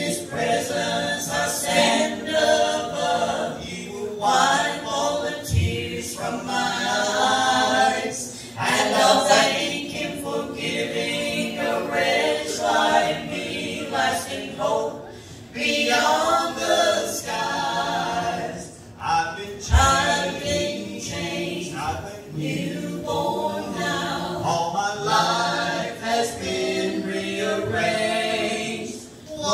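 A small gospel group singing a hymn into microphones, a man's voice with two women's.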